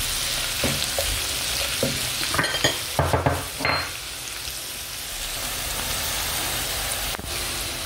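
Chopped onion, leek and green pepper sizzling steadily in hot oil in a non-stick frying pan, stirred with a silicone spatula that scrapes and knocks against the pan several times, mostly in the first half and once near the end.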